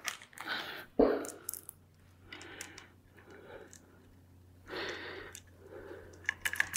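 Tools and small metal parts being handled on a workbench: one sharp knock about a second in, then light clicks and soft breaths while the aluminium housing of the rolling mill is worked on by hand.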